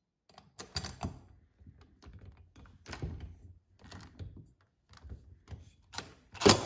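Light, irregular metal clicks and knocks of a T27 Torx bit on a cordless impact driver being fitted into the chainsaw's cylinder bolt heads, with a louder sharp knock near the end.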